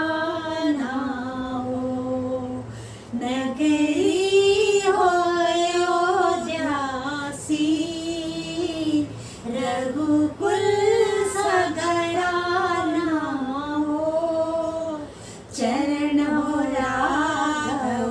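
Women singing a Hindi devotional bhajan to Ram without instruments, in long drawn-out phrases with wavering held notes and short pauses for breath between them.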